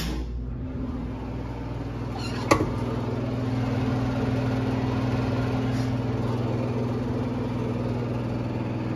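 Geothermal heat pump running on a thermostat call, its newly fitted half-horsepower blower motor with a 10 µF run capacitor humming steadily. A single sharp click comes about two and a half seconds in. The motor is running in the wrong direction because of how its plug is wired.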